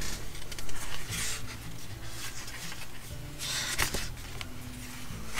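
Paper sticker-book pages rustling and flapping as they are flipped and handled, in a few short bursts, over soft background music.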